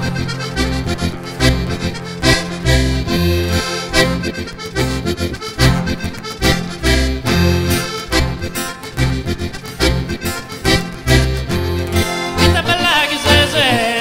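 Live Sardinian folk band playing an instrumental passage: an accordion leads over guitar and a rhythmic bass line. A male voice comes back in singing near the end.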